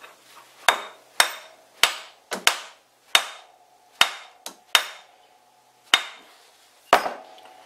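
About ten sharp metallic knocks at an uneven pace, each ringing briefly, as the aluminium step pulley is rammed onto the taper of a vintage Karger lathe spindle to seat it tight.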